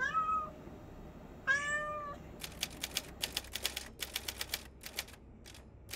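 A kitten meows twice, a short call and then a slightly longer one. From about two and a half seconds a typewriter sound effect clacks in rapid runs of keystrokes as a caption is typed on.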